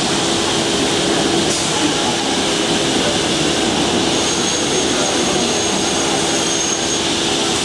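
TAI CHAN PSN computer panel saw running: a steady mechanical whir with a constant low hum underneath. A thin, high whine comes in about four seconds in and stops about three seconds later.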